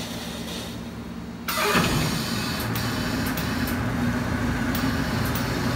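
Road force wheel balancer running with a truck tire and wheel spinning on it; about a second and a half in, the sound jumps suddenly to a louder steady hum with hiss.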